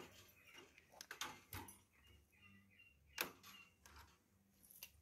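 Faint clicks and scrapes of tie wire being twisted by hand around steel rebar, fastening the corrugated plastic conduit to the column's reinforcing cage.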